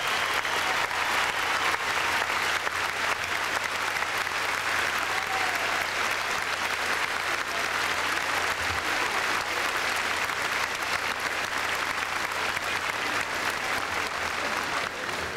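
Audience applauding, a steady wash of clapping that slowly dies down toward the end.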